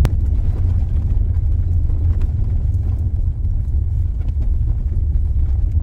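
Honda Element driving slowly along a gravel dirt road, heard from inside the cabin: a steady low rumble of engine and tyres, with light scattered ticks of gravel under the tyres.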